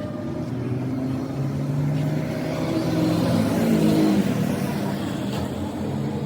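A motor vehicle's engine running, growing louder to a peak about four seconds in and then easing off, as of a vehicle passing close by.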